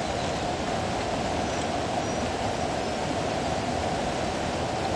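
Swollen, fast-flowing river water rushing steadily.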